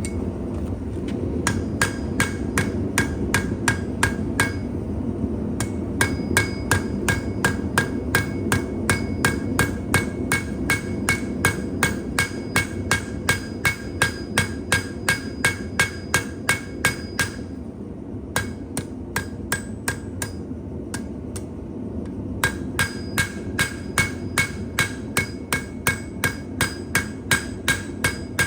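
Blacksmith's hammer striking metal on an anvil at about three blows a second, each blow ringing, in runs broken by two short pauses. A steady roar of the forge fire runs underneath.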